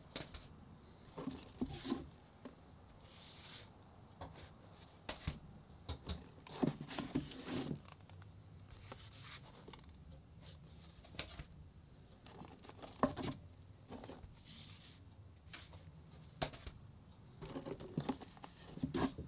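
Cardboard LP record sleeves being handled: rustling, sliding and light knocks in scattered clusters, with short quiet gaps between, the sharpest knock about two-thirds of the way through.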